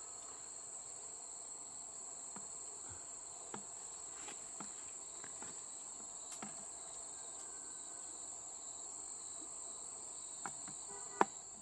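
Steady high-pitched insect chorus, a continuous shrill drone. A few light clicks and taps sound over it, with one sharper click near the end.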